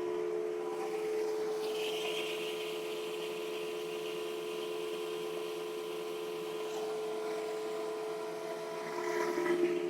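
Electric motor drone from a benchtop planer and its dust-collection vacuum running steadily, growing louder and rougher near the end.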